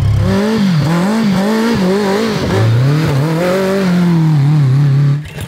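BMW K100 1000cc inline-four engine in an off-road trophy kart, revving up and down repeatedly as the kart is driven, cutting off near the end.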